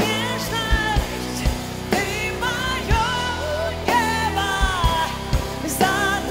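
Live pop-rock band music: a woman singing over the band, with a drum kit keeping a steady beat.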